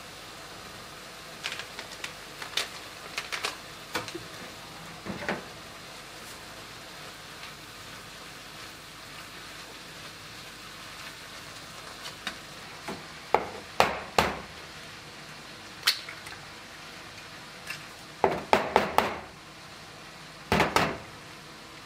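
Ground beef sizzling in a frying pan under a steady hiss, with a utensil scraping and clattering against the pan as the meat is stirred, in several short clusters of knocks. Near the end come a few sharper clinks and knocks at a mixing bowl.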